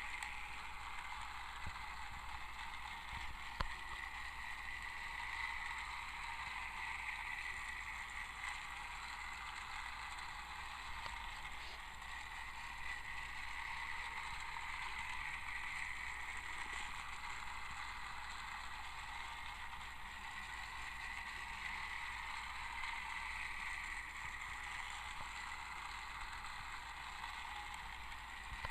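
Battery-powered Trackmaster Thomas toy engine running along its track, its small electric motor and gears whirring steadily and swelling slightly now and then. There is a single sharp click a few seconds in.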